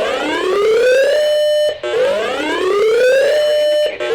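Electronic siren tone of a broadcast weather-alert signal. Each wail climbs in pitch for about a second, holds briefly, then cuts off, repeating about every two seconds: two full cycles, with a third starting near the end.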